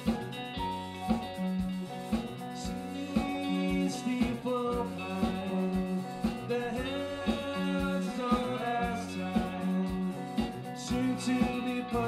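Live band playing an instrumental passage with electric guitars, bass guitar and a drum kit keeping a steady beat.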